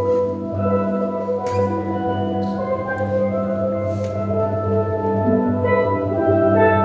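Steel band playing a slow passage: steelpans hold rolled chords over low bass pans, with a few soft high strokes on top. The music swells slightly near the end.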